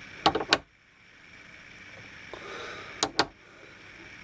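Two pairs of sharp, light clicks about three seconds apart, over faint room hiss.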